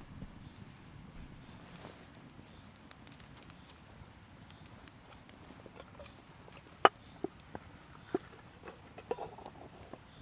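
Small twig campfire burning, crackling and popping with scattered sharp snaps over a low rush of flame. One louder sharp click about seven seconds in.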